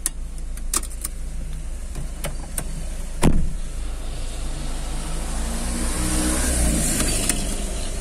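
Car's driver door being shut: a few light clicks, then one heavy thump about three seconds in as the door, left ajar, is pulled closed. After it the car's engine runs on and rises in pitch.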